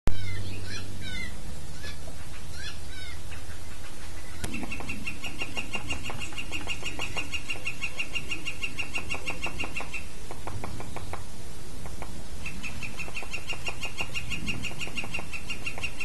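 Northern Flicker long call, a fast, even run of the same note repeated many times a second, from about four and a half seconds to ten seconds and again from about twelve and a half seconds, over the irregular taps of a hairy woodpecker pecking at wood. A few short chirping bird calls in the first three seconds.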